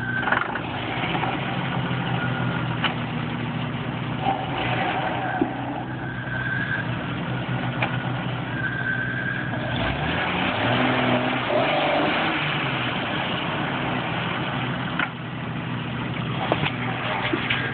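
Jeep Wrangler YJ's engine running and revving up and down as it crawls up a dirt hill, its tires spinning in the loose soil. A few sharp knocks are scattered through it.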